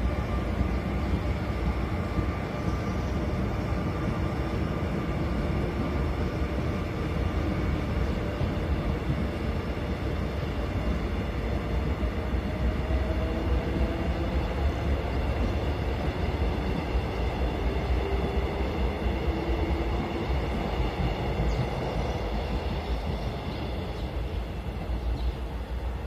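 Train pulling away along the track: a steady low rumble with several thin, steady whining tones above it, easing off slightly near the end.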